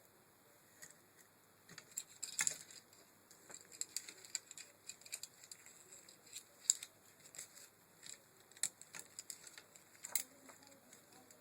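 Scattered light clicks and taps, irregular and quiet, from the parts of a car window regulator being handled during repair. The three sharpest come about two and a half seconds in, near the middle, and shortly before the end.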